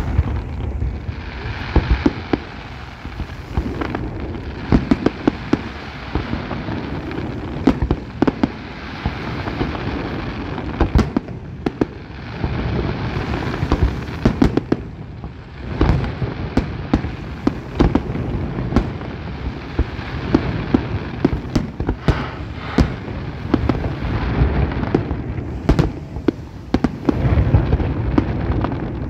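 Fireworks display: a dense, continuous run of shell bursts, many sharp bangs close together over a steady crackle.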